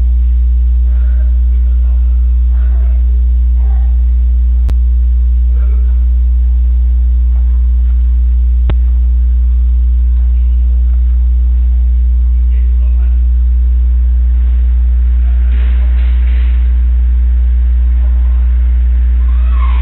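Loud, steady electrical mains hum with faint distant voices underneath. Two sharp clicks come about four seconds apart, and a short rough burst of noise comes near the end.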